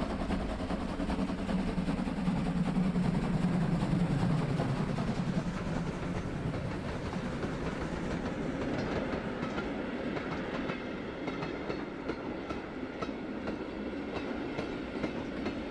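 BR 50 steam locomotive running past with a freight train, loudest in the first few seconds. Then the tank wagons and boxcars roll by, their wheels clicking over the rail joints.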